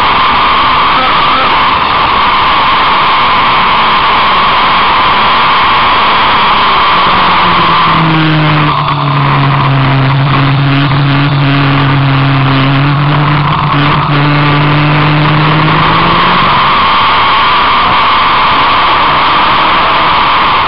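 Loud, steady rush of wind and road noise at circuit speed on an onboard microphone. From about 7 to 16 seconds in, an engine note comes through underneath, dipping slightly in pitch and then rising again.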